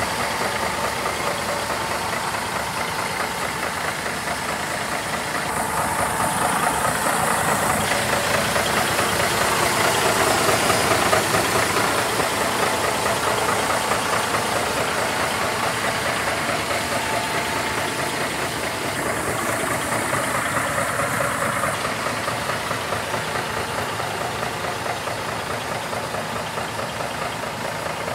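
Scania 470 hooklift truck's diesel engine idling steadily, with a clattering, knocking beat.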